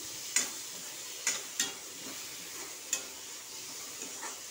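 Chopped tomatoes, onions and spices sizzling in oil in a metal kadhai as a spatula stirs them, with a sharp knock of the spatula against the pan about once a second.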